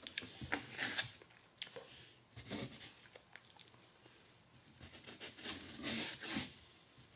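Fork and knife clicking and scraping on a plate while pancakes are cut, with soft chewing and mouth sounds in between.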